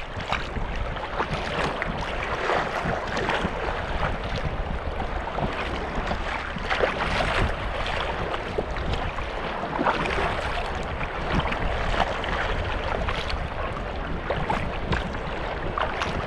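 Water splashing and sloshing around a Prijon Seayak 500 LV sea kayak and its paddle in choppy sea, with many short irregular splashes over a steady wash. Wind rumbles on the microphone beneath.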